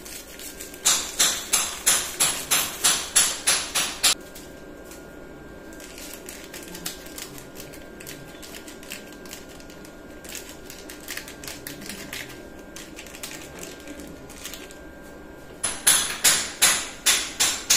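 Rapid, evenly spaced knocking, about four sharp strikes a second, in two runs of a few seconds each: one starting about a second in, the other near the end. Between the runs, a pot of broth at a rolling boil bubbles steadily.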